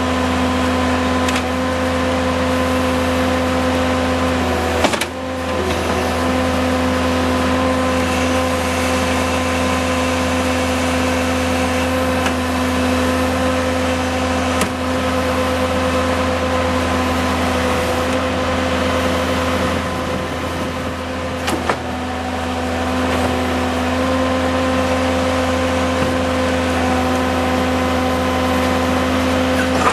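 Diesel engine of a Terex PT70 compact track loader running at a steady speed. It dips briefly about five seconds in, and a few faint clicks sound over it.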